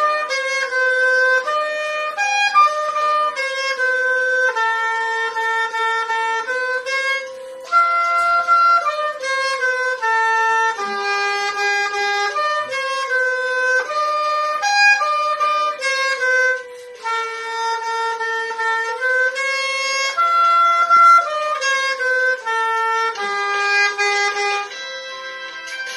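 Oboe playing a folk-song melody, one note at a time in phrases with short breaks between them.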